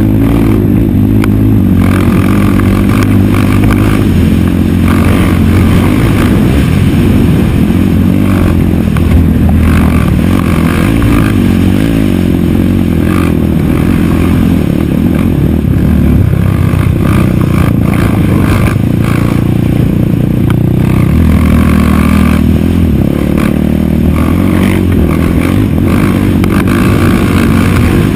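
A racing quad's engine running hard at high revs, the pitch rising and falling as the rider works the throttle around the dirt track. Clatter and scraping from the rough ground come through alongside it.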